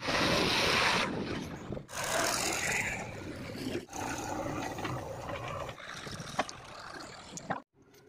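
JCB 3DX backhoe loader and Massey Ferguson 7250 DI tractor diesel engines running, in short clips that change abruptly about every two seconds, with a few sharp knocks near the end.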